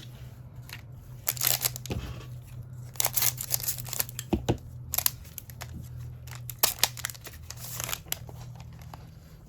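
Plastic trading card pack wrapper crinkling and rustling in irregular short bursts as it is handled and torn open, over a steady low hum.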